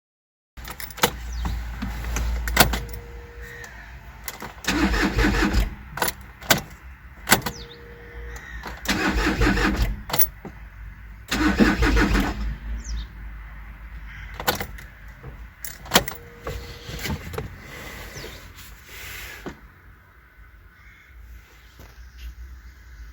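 A VW engine being cranked by its starter in three short attempts, each about a second long, without firing. It cranks but won't start, with crankshaft/camshaft position correlation fault codes that point to the timing. Short beeps and clicks come between the attempts.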